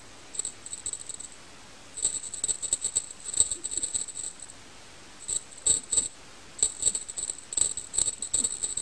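A small metal bell jingling in quick, irregular shakes, in four bursts with short pauses between them.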